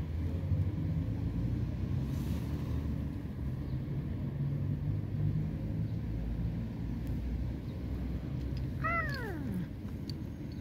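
A cat meows once about nine seconds in, a short call that starts high and slides down in pitch. A steady low rumble runs underneath.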